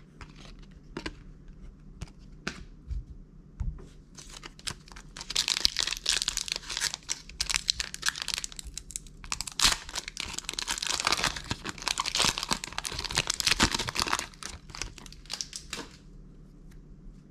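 Trading card booster pack wrapper being torn open and crinkled by hand, a dense crackling that starts about five seconds in and stops shortly before the end. Before it, a few light clicks of cards being handled.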